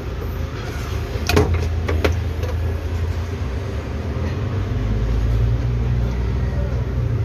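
Plugs and cables clunking as they are handled at an amplifier rack, with a few knocks a second or two in, over a steady low rumble that swells near the end.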